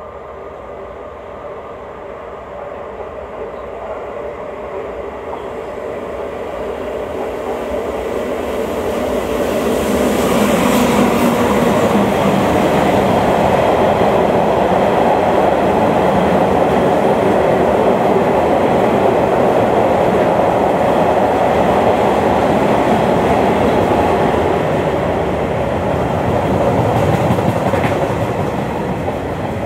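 A freight train of empty car-carrier wagons, hauled by a class 269 electric locomotive, passes without stopping. The sound grows louder over the first ten seconds as it approaches, then the wheels roll steadily over the rails as the wagons pass close by.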